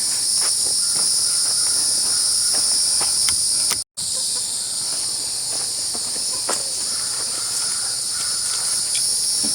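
Steady high-pitched insect chorus, with a brief dropout about four seconds in and a few faint clicks.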